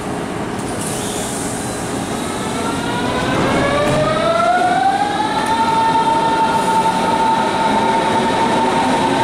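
Berlin S-Bahn electric train pulling out, its traction motors whining. Over a steady rumble, the whine rises in pitch for about two seconds from a little past three seconds in, then holds at one steady pitch.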